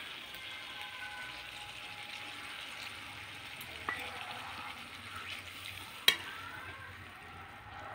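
Watery tomato and bamboo-shoot gravy sizzling steadily in a kadhai, stirred with a slotted metal spoon, which knocks sharply against the pan once about six seconds in.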